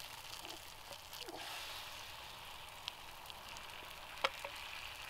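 Beaten eggs sizzling in a hot cast iron skillet greased with sausage fat, a steady frying hiss as they are poured in. A few short clicks break through it, one sharp click about four seconds in the loudest.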